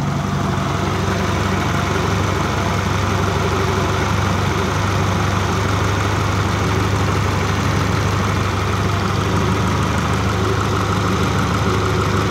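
Honda 16-valve four-cylinder engine idling steadily on compressed natural gas through a newly fitted CNG injector rail. The idle has a little shake, which the owner puts down to injectors and a reducer that have sat unused for about a year.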